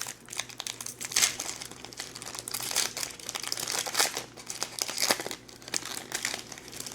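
Crinkling and tearing of a foil trading-card pack wrapper as it is ripped open and handled, in irregular bursts of crackles.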